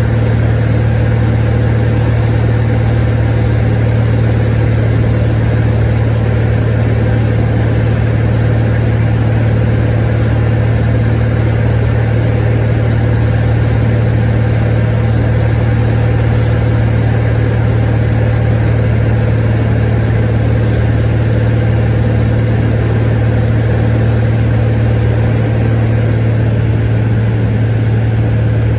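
Cessna 182 Skylane's piston engine and propeller heard inside the cabin in flight: a loud, steady drone with a low hum that holds one pitch throughout.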